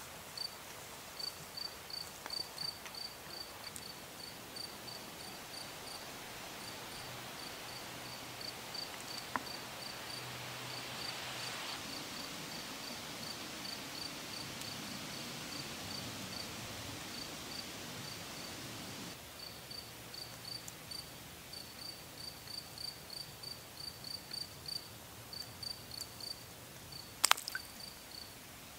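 A cricket chirping steadily, about three short high chirps a second. Near the end, a sharp splash into the pond water.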